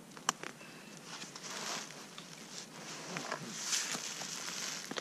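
A freeze-dried meal pouch crinkling in several short bursts as a spoon is worked around inside it, with a sharp click shortly after the start.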